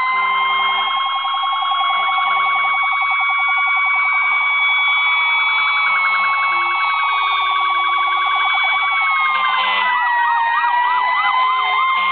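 Several emergency vehicles' sirens sounding at once: a slow wail held against a fast warble, which changes to a slower yelp near the end.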